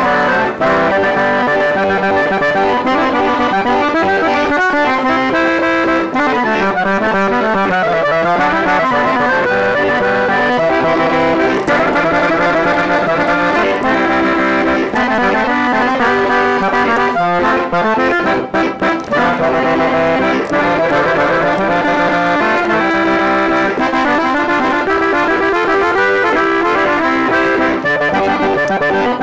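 Accordion played solo in conjunto style, quick melodic runs over chords and bass notes, with a brief break about eighteen seconds in.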